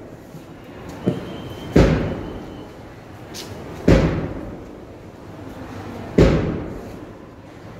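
Three heavy thuds about two seconds apart, each ringing on and fading slowly, with a fainter knock about a second in.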